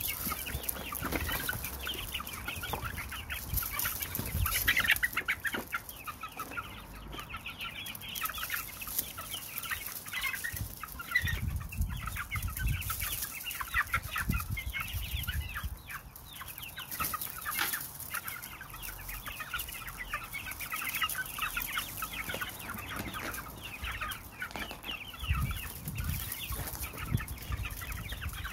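A flock of young shamo gamefowl chirping and clucking continuously, many short overlapping calls at once.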